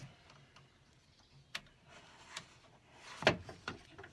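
A van's sliding-door latch assembly being worked loose by hand: a sharp click about a second and a half in, and a louder click with a short rattle just after three seconds, as its cables are unsnapped.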